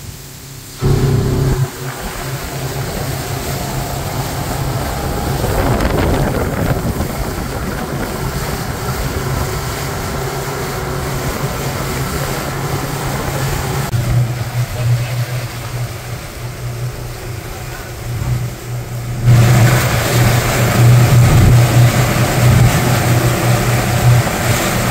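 Pontoon boat's motor running under way, a steady low hum mixed with the rush of wind and water. It grows louder about three-quarters of the way through.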